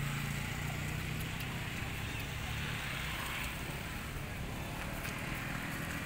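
A low steady hum, fading out about halfway through, over a steady background hiss.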